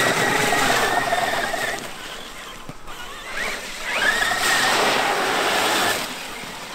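Brushless electric motor of a Traxxas X-Maxx RC monster truck whining under throttle, with the hiss of its tyres on wet sand. It happens twice: each time the whine rises quickly, then holds steady at speed for about two seconds, with a quieter gap between.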